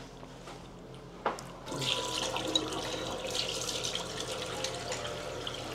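A steady stream of running water, a hissing trickle that starts about two seconds in and sounds like someone peeing. A single click comes just before it.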